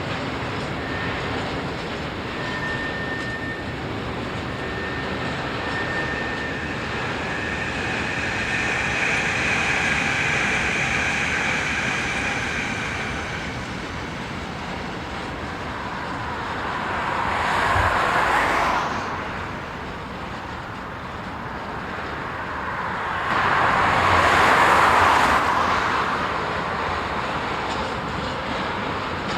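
Freight train rolling on the tracks of a marshalling yard, with a thin steady squeal in the first half. Two louder swells rise and fade, one just past the middle and a stronger one later, like something passing close by.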